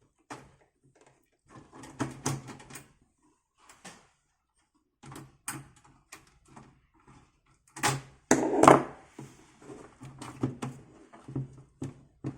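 Irregular clicks and knocks of a screwdriver and hands working at the screws and parts inside an Amiga 500's plastic case, with a louder clatter about eight seconds in.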